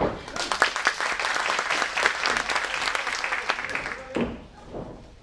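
Audience clapping in a hall, a dense patter of hand claps breaking out right after a pin count, when the pinned wrestler kicks out, and dying away about four seconds in.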